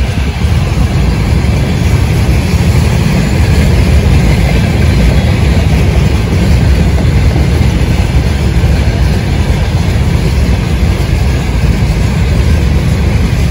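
Freight train behind a 2ES10 'Granit' electric locomotive rolling past, a steady loud rumble of wheels on rails.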